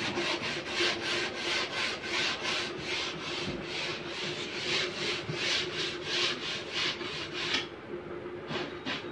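Rhythmic back-and-forth rasping of a hand tool on wood, about three strokes a second. The strokes stop near the end, then two more follow.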